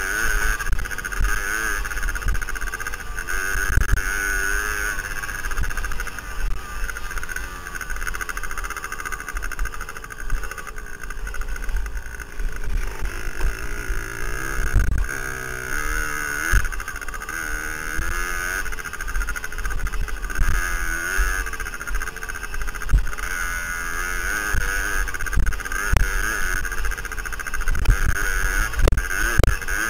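Suzuki DS80's small two-stroke single-cylinder engine running under way, its pitch rising and falling with the throttle. Wind rush and frequent low thumps from the bumpy track are heard on the helmet-mounted microphone.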